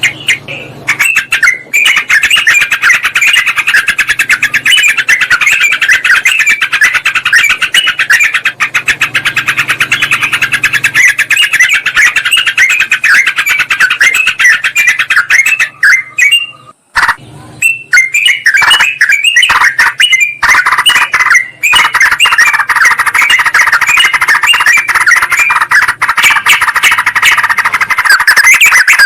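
Several yellow-vented bulbuls (trucukan) calling at once: a loud, dense stream of rapid chirps and chatter, broken by a brief gap a little past halfway. It is a lure recording of agitated bulbuls, used to draw wild ones in.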